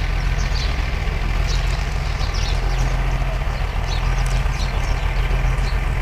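Steady low machine hum, like a running motor, with faint high bird chirps now and then.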